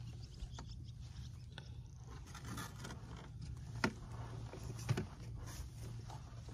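Faint handling sounds of a just-caught fish being unhooked in a small boat: scattered light clicks and scrapes, with two sharper knocks about four and five seconds in, over a low steady rumble.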